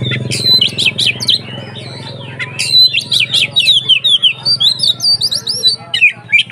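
Oriental magpie-robin (kacer) in full song, a fast run of loud whistled and sweeping notes. A low steady hum runs underneath and is strongest at the start.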